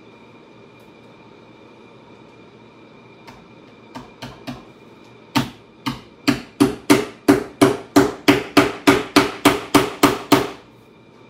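Hammer striking a sheet-metal seat strainer being fitted over a saddle tree: a few light taps about four seconds in, then a fast, even run of about twenty blows, roughly four a second, that stops shortly before the end.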